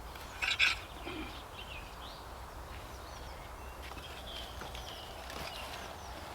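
Wild birds chirping and calling outdoors: scattered short high chirps and quick whistled glides, with a louder call about half a second in, over a steady low background rumble.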